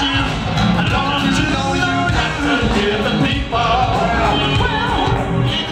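Live R&B/soul band playing loud through a concert sound system, with electric bass and keyboards under a lead vocalist singing into a handheld microphone.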